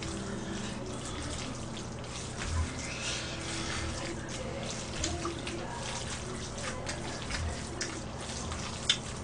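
Wet chewing and slurping of jjajangmyeon noodles, with light clicks of chopsticks and a spoon against dishes and a sharp click near the end.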